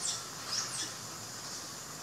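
Young macaques giving brief high-pitched squeaks, one about half a second in, over a steady high hiss.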